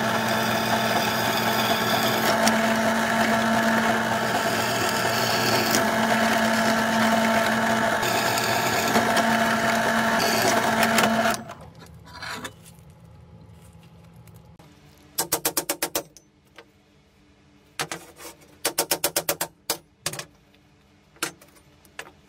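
Bench drill press running steadily, its bit cutting through a metal plate, until the sound stops abruptly about halfway through. Then a few short bursts of rapid metallic clicking as the drilled metal pieces are handled.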